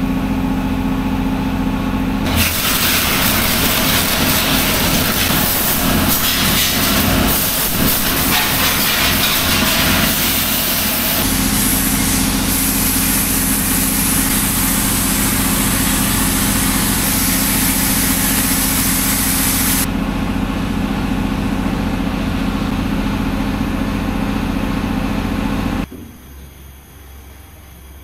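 Pressure washer running with a steady motor hum. A loud hiss of spray plays on the motorcycle from about two seconds in until about twenty seconds. The motor runs on alone and cuts off a couple of seconds before the end.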